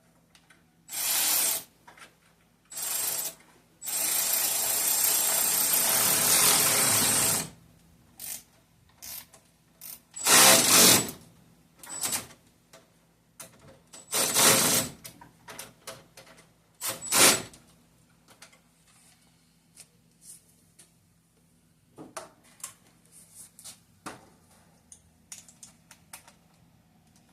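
A cordless power tool with a socket running in bursts: two short runs, then one long run of about three seconds, then several short spurts, with faint clicks of tools and parts near the end.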